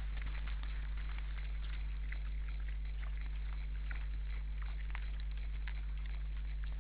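A group of wild boars feeding in snow: scattered small crunching and crackling clicks of chewing and rooting, over a steady low hum that is the loudest part.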